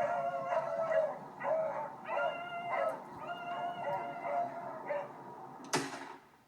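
Beagles baying on a rabbit's trail: a run of drawn-out, howling bays, one after another, that trail off about five seconds in. A brief sharp noise follows near the end.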